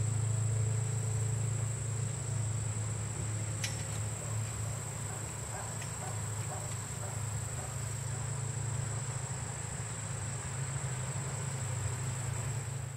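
Insects, crickets or similar, keeping up a steady high-pitched drone, over a steady low hum. There is a faint click a little under four seconds in.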